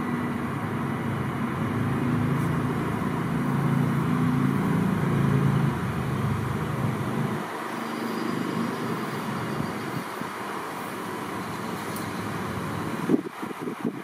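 A vehicle driving past, its engine hum rising to a peak about five seconds in and fading away by about seven seconds, over steady distant traffic noise. A few sharp knocks near the end.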